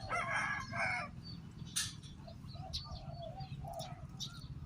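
A chicken-like clucking call in the first second, then a spotted dove cooing in a run of short low notes.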